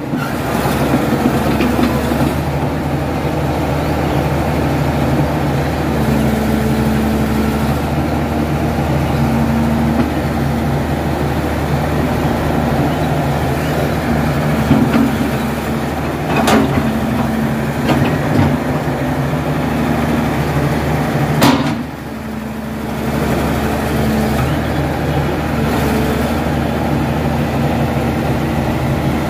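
Diesel engine of a Caterpillar excavator running steadily, with a higher tone that comes and goes several times and two sharp knocks about five seconds apart past the middle.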